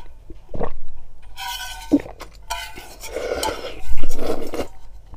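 Broth slurped from a tilted stainless steel bowl in several noisy drawn-out pulls, the loudest about four seconds in, with the metal bowl clinking and knocking in between.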